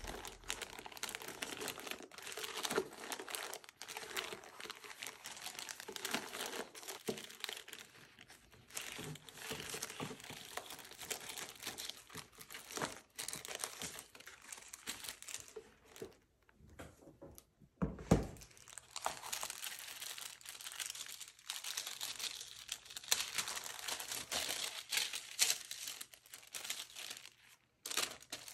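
Plastic zip bags and papers crinkling and rustling as hands rummage through a polyethylene storage case, with one sharp knock about two-thirds of the way through.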